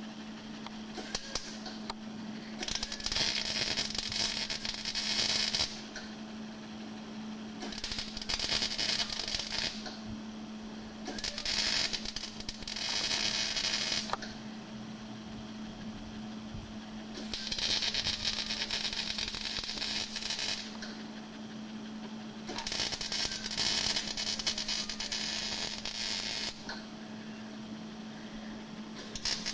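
Electric arc welding on an oil pan: the arc crackles in five runs of two to four seconds each, with short pauses between them. A steady low hum runs underneath.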